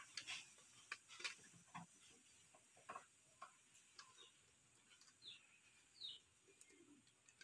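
Near silence with faint, irregular clicks and taps of a screwdriver on a switchboard's terminal screws as the main phase wire is fastened into the fuse cut-out. Two short high chirps come about five and six seconds in.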